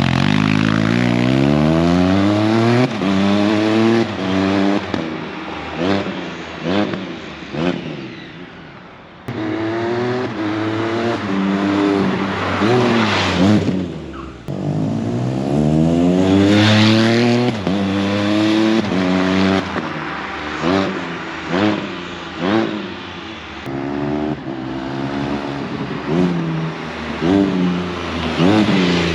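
Can-Am Spyder F3's Rotax 1330 ACE three-cylinder engine through an RLS Echo Series closed exhaust, revving up and dropping back again and again in repeated rising sweeps. The exhaust note is comparatively quiet and closed-sounding.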